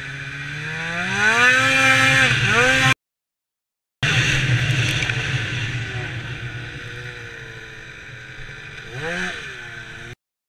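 2004 Polaris RMK 800 snowmobile's two-stroke twin engine revving up under throttle, its pitch climbing over the first three seconds. After a break in the sound, the engine winds slowly down, gives a quick throttle blip about nine seconds in, and the sound cuts off just before the end.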